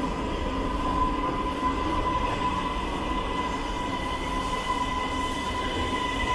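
CSR-built metro train rolling slowly alongside the platform as it comes to a stop, a steady rumble with a high steady squeal running over it.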